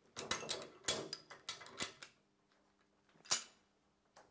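Metal clinks and knocks as a steel seal-trimming jig is lifted off a Holden V8 cast-iron engine block, a quick cluster of them over the first two seconds and one sharp knock a little past three seconds in.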